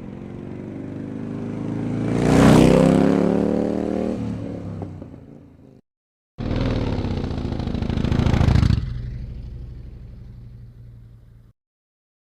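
Two Harley-Davidson motorcycle pass-bys, one after the other. The first bike's engine grows louder to a peak a couple of seconds in, then drops in pitch and fades as it moves away. After a short gap the second starts abruptly, swells to a peak, then drops off sharply and fades out.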